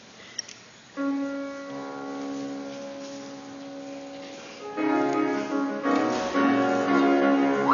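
Keyboard playing held chords, coming in about a second in, then several new and louder chords from about halfway that build toward the end.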